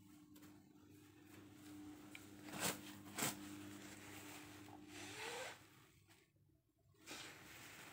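Close rustling and handling noise: two short, sharp rasps about half a second apart near the middle, then about a second of rustling.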